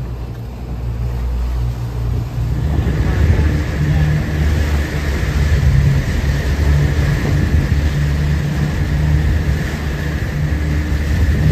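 Boat engine running steadily, picking up in level about two seconds in, with a faint high whine over the low hum.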